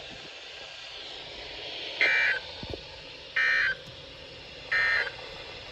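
Emergency Alert System end-of-message data bursts: three short, raspy digital chirps about a second and a half apart over a steady hiss. They are the coded signal that marks the end of the warning message.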